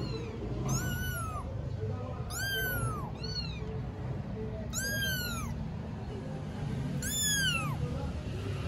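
Four-week-old kitten mewing: four high, thin mews, each rising then falling in pitch, about two seconds apart.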